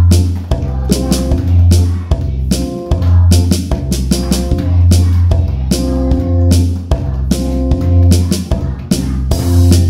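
Music with a drum kit and a bass line, with a strong bass note about once a second under sharp drum strokes.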